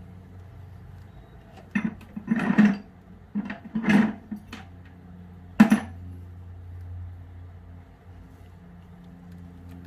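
A handful of metallic clinks and knocks as brake caliper parts and tools are handled, about six in a few seconds with the sharpest near the middle, over a steady low hum.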